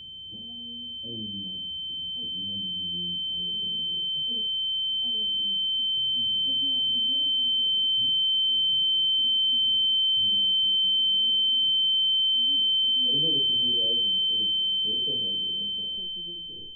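A single high-pitched steady ringing tone, the ear-ringing effect used for shock, swells up and fades away again near the end. Under it, voices talk, muffled as if heard through a wall.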